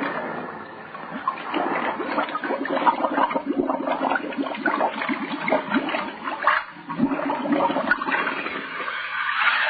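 Radio-drama sound effect of water bubbling and gurgling, standing for a diver going down under the sea; it is a dense, irregular run of bubbles that builds about a second in. It has the dull, narrow sound of a 1936 broadcast transcription.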